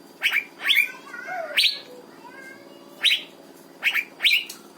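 Asian fairy-bluebird (cucak biru) singing: six loud, sharp whistled notes, each sweeping quickly upward, some coming in quick pairs.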